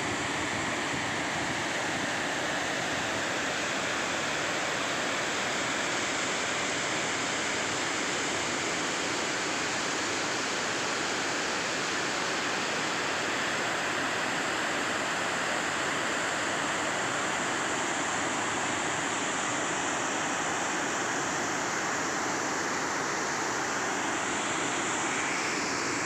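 Fast, muddy water rushing over a concrete weir and down a walled channel: a loud, steady rush of churning water.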